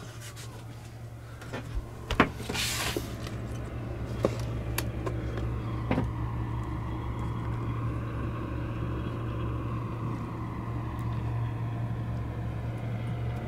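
A steady low mechanical hum, like an engine or generator running, with a few clicks and knocks and a short hiss in the first few seconds.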